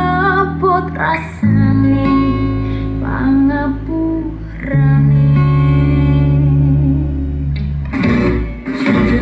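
Dangdut song with singing and guitar, played loud through a pair of PA speaker cabinets driven by a repaired home-built SOCL power amplifier and picked up by a phone's microphone in the room. It is a listening test of the amplifier after its faulty ground point was fixed, and it plays with no hum even at high volume.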